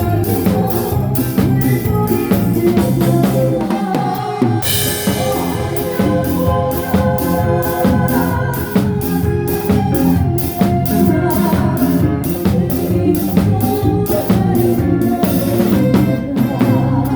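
Live band playing in rehearsal: a drum kit keeps a steady beat over bass and organ-like keyboard chords, with a cymbal crash about four and a half seconds in.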